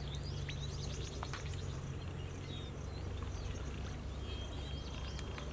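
Steady low outdoor rumble with faint birds chirping and a few soft clicks.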